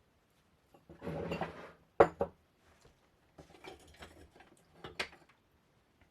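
Rustling of items being taken out of a box, with two sharp clinks of glassware or ceramic knocking against a hard surface about two seconds in. More light rustling and handling follows, with another clink near the end.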